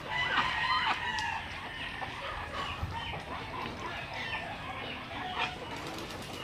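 Backyard poultry calling: a drawn-out call through the first second, then scattered short clucking calls.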